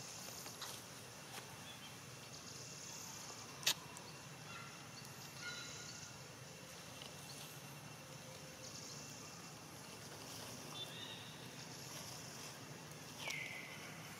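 Quiet outdoor ambience: a high hiss that swells and fades every few seconds, one sharp click about three and a half seconds in, and a short falling squeak near the end.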